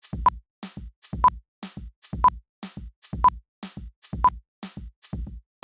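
Electronic background music with a steady drum-machine beat, about two hits a second. Over it come five short, high beeps, one each second: a quiz countdown timer ticking off five seconds to answer.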